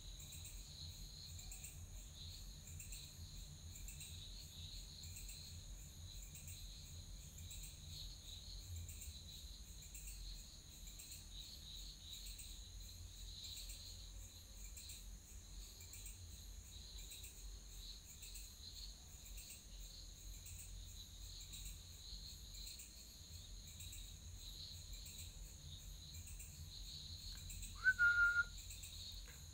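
Insects chirping in a steady, evenly pulsing rhythm, with a low hum underneath. Near the end comes a short, loud, high whistle.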